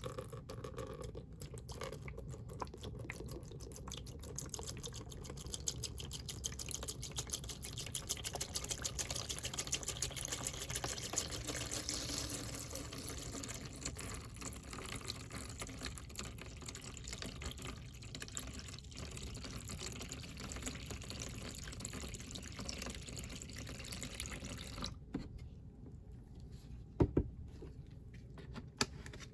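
Water running and splashing steadily with fine crackling, stopping about 25 s in; a single sharp knock follows near the end.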